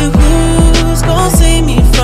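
Background music with a deep, steady kick drum about every half second under held melodic tones.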